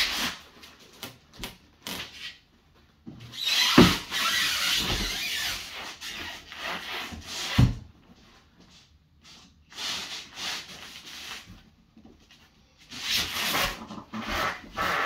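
A large black flight case being shoved and tilted by hand on top of the case beneath it, scraping and rubbing case against case, with two sharp knocks about 4 and 8 seconds in.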